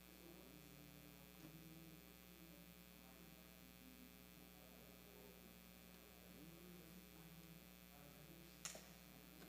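Near silence: a steady electrical mains hum, with a single brief click near the end.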